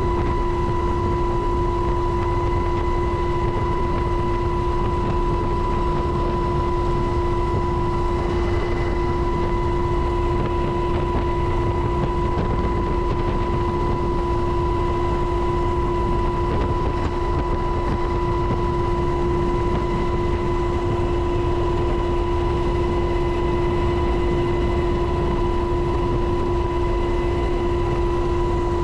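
A UH-60 Black Hawk helicopter's twin turboshaft engines and rotors in steady flight, heard from inside the cabin by the open side door. There is a deep, constant rumble and a rush of wind, with an unchanging high whine over them.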